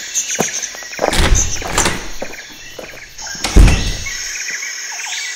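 Small birds chirping repeatedly, with heavy low thumps about a second in and again, loudest, about three and a half seconds in.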